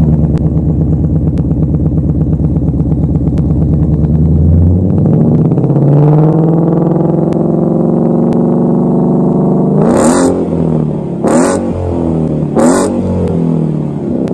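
2015 Ford Mustang GT's 5.0 V8 exhaust through a MagnaFlow 14-inch 2-in/2-out muffler with built-in X-pipe, straight pipes and 5-inch tips, heard close at the tailpipe: idling just after start-up, then rising about five seconds in to a steady 2000 rpm, then three sharp revs near the end. Plenty aggressive, with a great tone.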